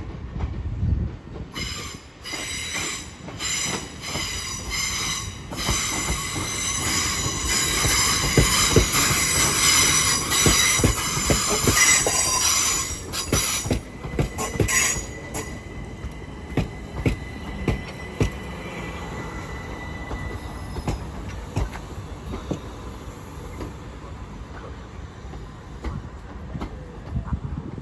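Class 377 Electrostar electric multiple unit arriving along the platform, its wheels squealing in high ringing tones for about the first fifteen seconds, loudest midway, with sharp clicks of the wheels over the track. The squeal then fades to a faint steady whine and low rumble as the train slows.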